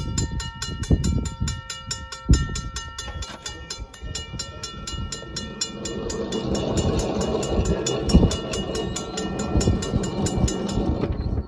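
Railroad grade-crossing warning bell ringing rapidly, about four strokes a second, as the crossing gate arm comes down, with a low rumble and a few thumps underneath. The bell cuts off suddenly near the end.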